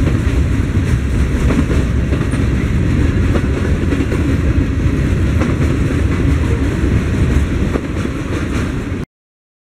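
Freight train cars rolling past: a steady, loud rumble of steel wheels on rail with faint clicks from the wheels over the rail joints. The sound cuts off suddenly near the end.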